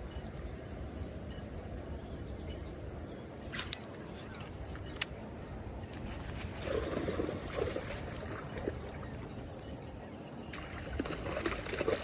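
Lake water splashing and sloshing in two bursts, about six and ten seconds in, over a steady low rumble, with a couple of sharp clicks before them.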